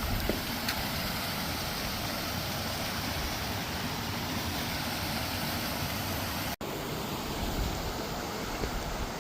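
Steady rushing noise of running water, with a momentary dropout about two-thirds of the way through.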